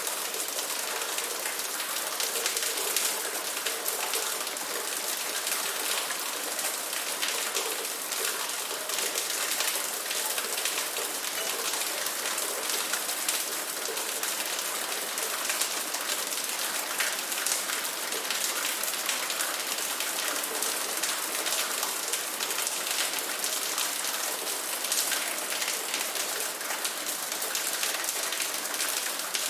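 Steady rain falling, with many individual drops heard striking a surface.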